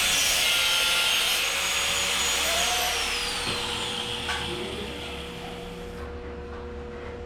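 Angle grinder cutting metal ceiling framing. It is let go about three seconds in, and its whine falls as the disc spins down, leaving a low steady hum.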